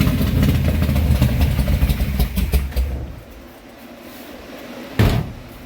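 Big-block V8 of a 1972 Dodge Charger running through its new exhaust with a loud, low rumble, then dying down about three seconds in. A single short, loud bang about five seconds in.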